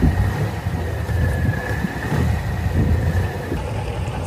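Motorboat engine running with a steady low rumble.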